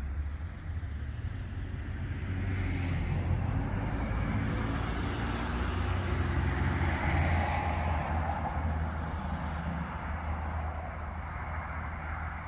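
A road vehicle, a van, driving past: its engine and tyre noise swells to a peak near the middle and then fades, over a steady low rumble.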